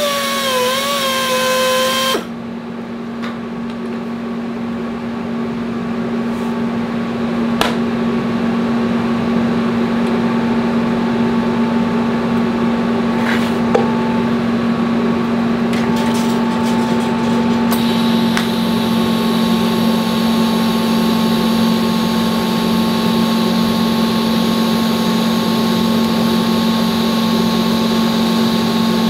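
Steady electrical hum of a TIG welding setup on a steel axle tube. About two-thirds of the way through, a higher whine and hiss join in as the arc is struck and kept burning.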